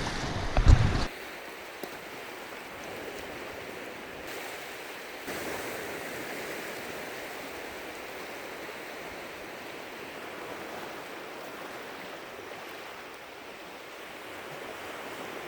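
Surf washing on the beach, a steady rushing hiss. A brief low rumble in the first second, like wind buffeting the microphone.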